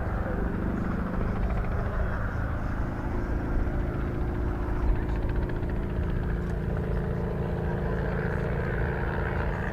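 Bristol Sycamore helicopter, with its Alvis Leonides radial piston engine, running steadily: a constant drone of engine and rotor with a few steady low tones and no rise or fall.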